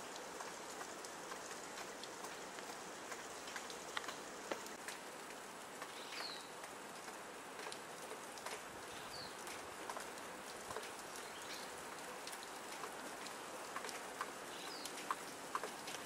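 Steady hiss of falling wet snow with scattered small ticks and patters. A few short, high call notes from European goldfinches come through four times.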